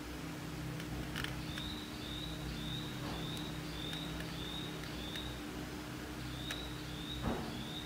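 A bird chirping in a steady series, a short high chirp about twice a second with a pause in the middle, over a constant low electrical hum. A few light clicks of electronic parts being handled, and a knock near the end.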